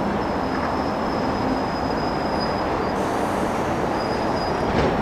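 JR East Series 205 electric commuter train standing at the platform: a steady running noise with a thin high-pitched whine that stops about three seconds in and comes back briefly. There is a single click near the end.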